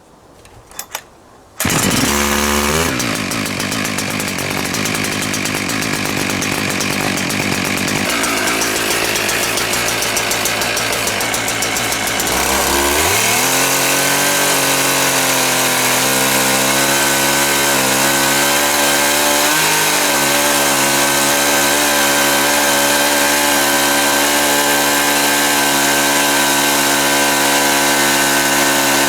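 Husqvarna 365 two-stroke chainsaw, fitted in an Alaskan chainsaw mill, comes in suddenly about two seconds in and runs at lower speed, then revs up a little before halfway and holds at high speed, pitch dipping slightly now and then as it cuts through the log.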